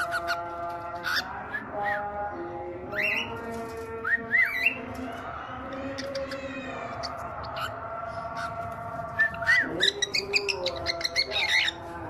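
Male cockatiel whistling its song: a run of held whistled notes and quick upward-sweeping calls, with sharper high chirps near the end. This is the male's breeding song, which he keeps up while the hen is laying.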